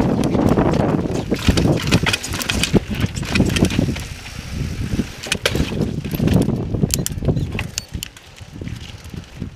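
Mountain bike ridden over rough slickrock: knobby tyres rumbling over rock while the bike rattles, with many sharp clicks and knocks. It quietens near the end.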